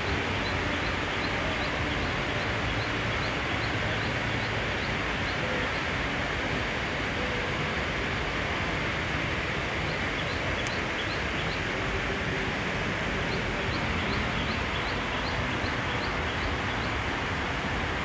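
Steady heavy rain, an even hiss without change. A faint high chirp repeats about three times a second in two runs, the first during the opening seconds and the second from about ten seconds in.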